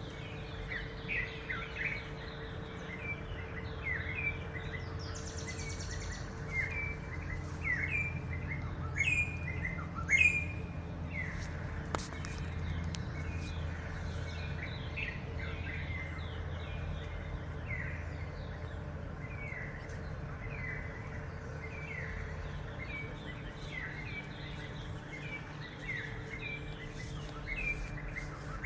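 Birds chirping: many short, downward-sliding calls repeated a few times a second, over a steady low hum.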